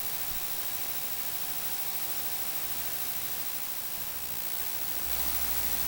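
Steady static hiss with a faint steady tone running through it; a low rumble joins near the end.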